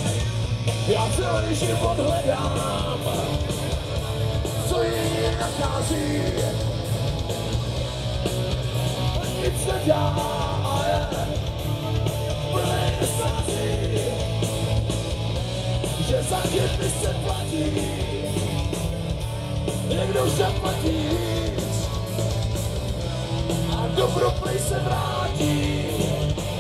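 A rock band playing live through a large PA: electric guitars, bass and drums under a male lead vocal that is sung and shouted.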